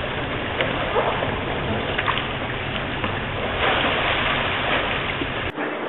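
Water splashing and sloshing in an indoor pool as a kayaker rolls a capsized kayak back upright, the splashing strongest a little before four seconds in. Near the end the low background rumble drops out suddenly.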